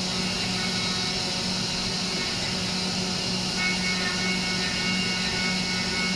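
Haas UMC-500 CNC machining centre running a 3-axis milling cut: a steady machine hum and hiss, with a thin high whine joining about halfway through.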